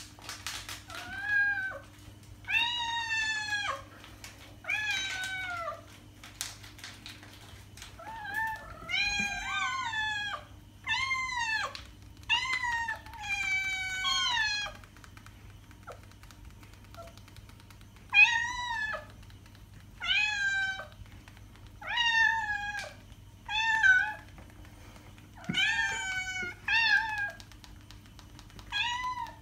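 A long run of domestic cat meows, about eighteen drawn-out calls, each dropping in pitch at its end. They come in groups, with two pauses of a couple of seconds each.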